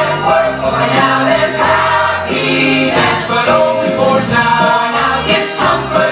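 Musical theatre cast singing together over instrumental accompaniment in a live stage performance.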